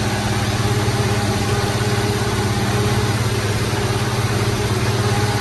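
Zetor 16245 tractor's six-cylinder diesel engine running steadily under plowing load, heard from inside the cab.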